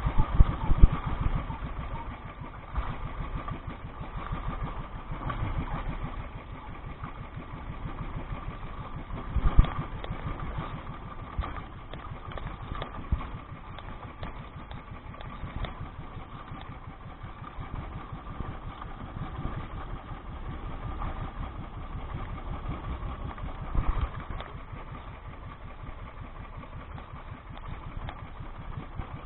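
Small outrigger fishing boat's engine running steadily under way, with a couple of louder bumps about ten seconds in and near the end.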